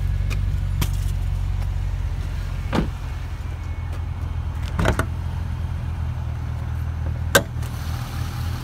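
Holden VF Commodore SS-V's V8 engine idling steadily, with three sharp clicks or knocks about two seconds apart, the last the loudest.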